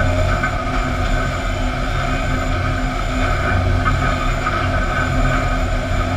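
Sawmill production line running: motors, chain conveyors and rollers carrying boards, a steady machine din with a constant low hum.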